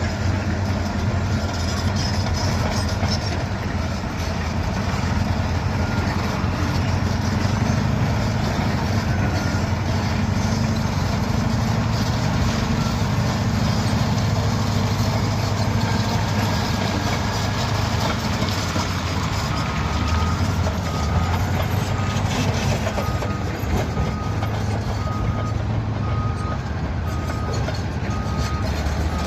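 Caterpillar D7E bulldozer's diesel engine running steadily while working. About two-thirds of the way in, a reversing alarm starts beeping about once a second as the dozer backs up.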